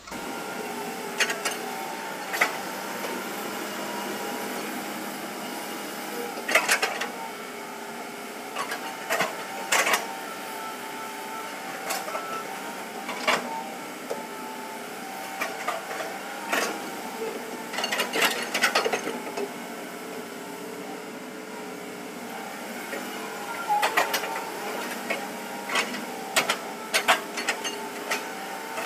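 Hitachi hydraulic excavator working, its engine and hydraulics giving a steady hum with a few held tones. Frequent sharp clanks and knocks come from the machine's steel tracks and bucket working the dirt and rock.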